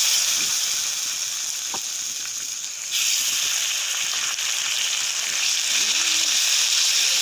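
Hot oil sizzling on a flat iron tawa as masala-coated mackerel are laid in to shallow-fry. The sizzle jumps louder about three seconds in as a second fish goes into the oil.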